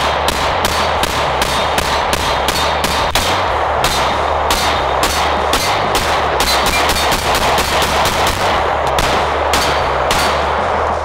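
Smith & Wesson M&P9 M2.0 9mm pistol firing shot after shot, about three shots a second, with a couple of short pauses.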